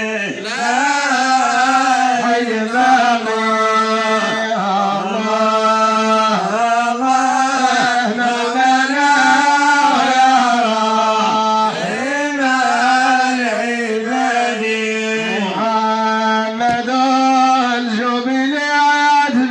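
A man singing a Moroccan madih, a Sufi praise song for the Prophet, solo into a microphone. He sings long, held, ornamented lines that bend and waver in pitch.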